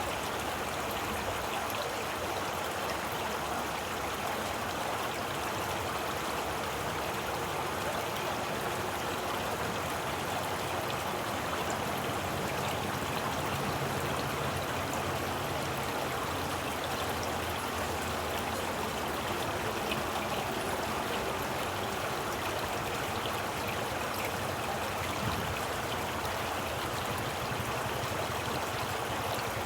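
A stream of water running steadily, a continuous even rush with no pauses.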